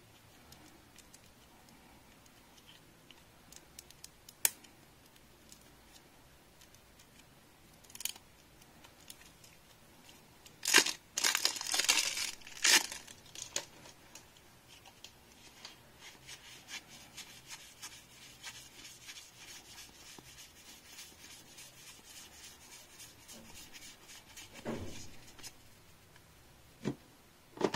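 Plastic shrink-wrap torn and crinkled off a deck of game cards in a burst of loud crackling about eleven to thirteen seconds in. After it comes a long run of soft, quick clicking and rustling as the cards are handled.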